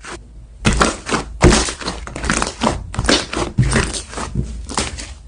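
Slime being squeezed and pressed by hand: a quick, irregular run of sticky squishes and pops, about a dozen, with the loudest about one and a half seconds in.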